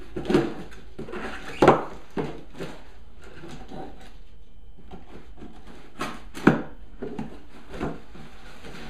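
Cardboard box being cut and opened by hand: irregular scraping, rustling and knocking of cardboard, loudest just under two seconds in and again a little after six seconds.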